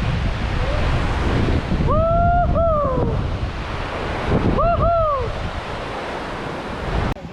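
Heavy wind rushing over the microphone, with a person whooping twice, each a rising-and-falling two-part 'woo-hoo'. The rushing cuts off suddenly near the end.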